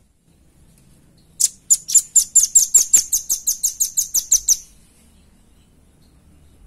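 Velvet-fronted nuthatch calling: a fast trill of about seventeen sharp, high-pitched notes, each sliding down in pitch, about five a second. It starts about a second and a half in and lasts about three seconds.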